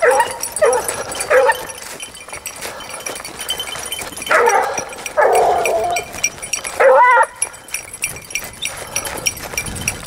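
Grand basset bleu de Gascogne hounds giving tongue on a hare hunt: separate short bays in the first second and a half, a longer drawn-out bay around five seconds in, and a last short one about seven seconds in.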